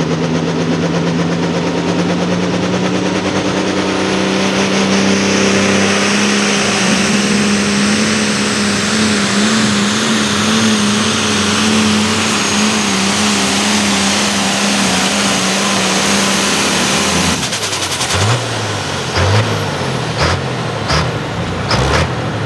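A light pro stock pulling tractor's 466-cubic-inch engine running flat out under load as it drags the sled. The note wavers in pitch partway through, then drops off suddenly near the end as the throttle is let off, followed by a few short throttle blips.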